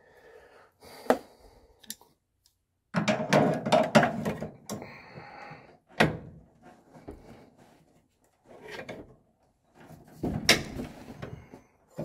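Clicks, knocks and scraping of metal parts and a screwdriver being handled on a washing machine's drive motor mount as the motor is refitted. They come in several short bursts with quiet gaps.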